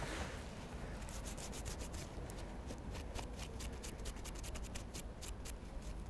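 Hands rubbing and scratching soil off a small freshly dug metal find in the grass: rapid dry scratching and clicking, close to the microphone, over a steady low rumble.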